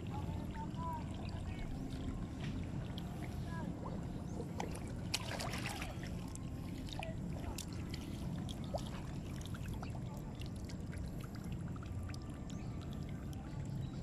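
Wet mud squelching and crackling as an arm digs into a mudskipper burrow, with many small scattered clicks, thickest about five seconds in, over a steady low rumble.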